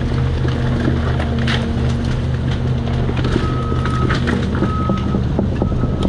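Cat 336 excavator's diesel engine running steadily while wood and debris crack and splinter under the machine. A high steady whine comes and goes several times in the second half.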